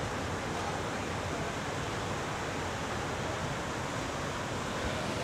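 Ocean surf breaking and washing up the beach, a steady hiss with no change in level.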